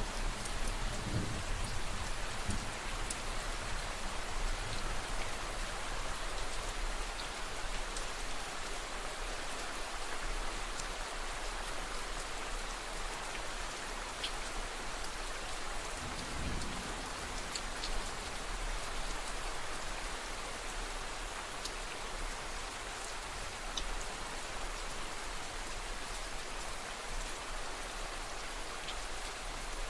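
Steady rain falling on a surface, with scattered sharp drop ticks. Low rumbles of distant thunder near the start and again about halfway through.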